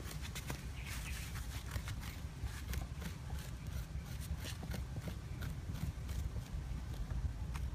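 Metal spoon scraping and tapping inside a halved green papaya, scooping out the seeds and pith in a quick series of short scrapes and clicks, over a steady low rumble.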